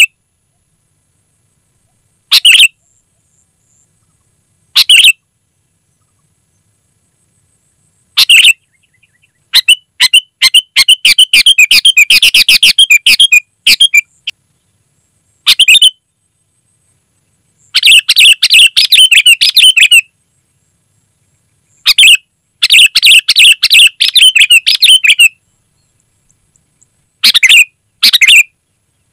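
Sooty-headed bulbul (kutilang) singing loudly. Short single calls come a few seconds apart, alternating with runs of rapid chattering phrases lasting two to four seconds, with dead silence between.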